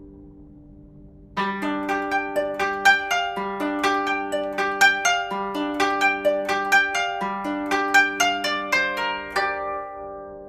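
Background music of quickly plucked string notes, a harp- or zither-like melody at about four or five notes a second. It starts about a second and a half in after a fading chord, and stops shortly before the end, the last notes ringing away.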